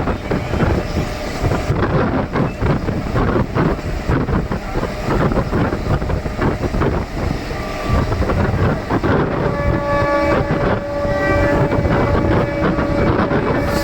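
DEMU express train running at speed, heard from on board: a continuous rumble and rattle of wheels on the track, with wind on the microphone. About two-thirds of the way through, a steady pitched tone with several overtones joins the running noise.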